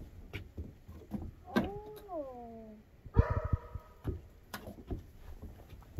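A small child's rubber boots knocking and scuffing on wooden deck boards as he walks. A long voice-like call falls in pitch about one and a half seconds in, and a short, harsher call follows about a second later.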